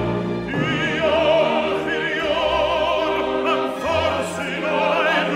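Background music: a classical singer holding notes with a wide vibrato over orchestral accompaniment.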